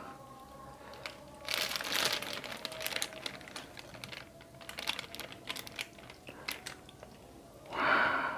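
Clear plastic food bag crinkling and crackling in irregular spurts as vegetable stew is squeezed out of it into a glass bowl, with a brief louder noise near the end.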